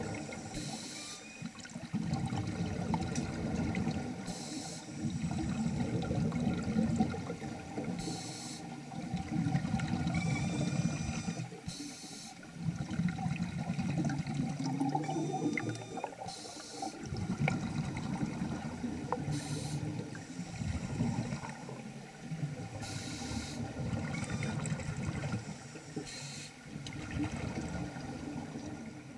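Scuba breathing heard underwater through a Nemrod Snark III double-hose regulator: long bouts of bubbling from exhaled air, broken by a short hiss of inhalation every three to four seconds. The sound fades out at the very end.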